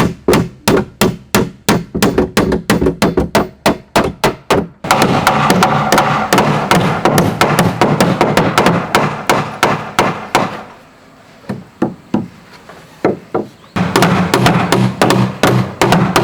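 A tool striking wood in fast, even blows, about four a second. The blows ease off to a few scattered knocks for about three seconds past the middle, then start again near the end.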